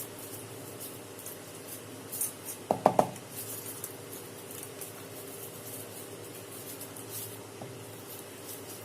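Quiet handling sounds of tomato ketchup being spread over a chapati, light scraping and rustling over a faint steady hum, with one short louder sound of gliding pitch about three seconds in.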